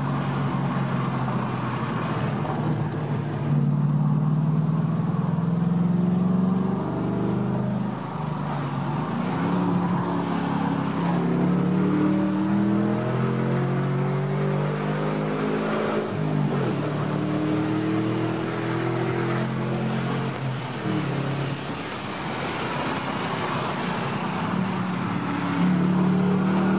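Ford Mustang 4.6-litre V8 with its electronic exhaust valves open, heard from inside the cabin. It revs up through the gears several times, and its pitch climbs and then drops back at each shift and each lift off the throttle.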